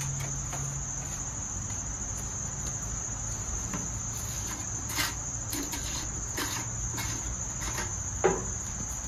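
A few light clicks and a knock as a plastic gas can is handled, over a steady high-pitched background whine.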